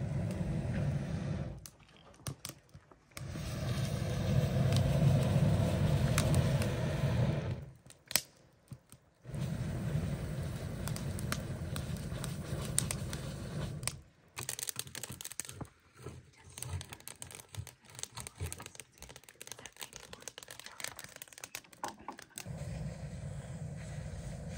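Wood fire in the firebox of a small steel wood-fired hot-tub stove, crackling and rushing as air is blown into it through a long blow pipe. The sound cuts out and comes back several times.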